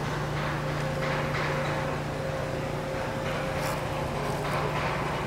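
Steady low mechanical drone with a fainter, higher steady tone above it.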